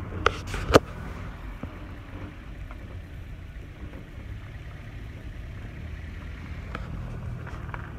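Steady low rumble of a car heard from inside the car, with two sharp knocks in the first second.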